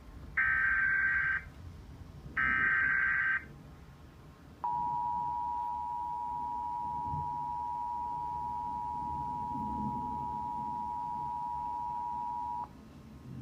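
Emergency Alert System broadcast tones: the last two of the three SAME header data bursts, each a harsh warbling digital screech lasting about a second, then the steady two-tone EAS attention signal (853 and 960 Hz) held for about eight seconds before cutting off sharply. The header bursts carry the coded alert, here a severe thunderstorm warning, and the attention tone signals that the spoken warning follows.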